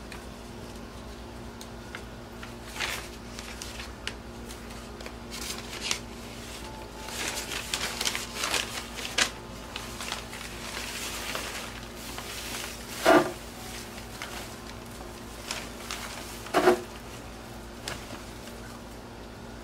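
Newspaper and shredded paper packing rustling and crinkling in bursts as hands dig through a cardboard box, with two louder, sharper crinkles in the second half.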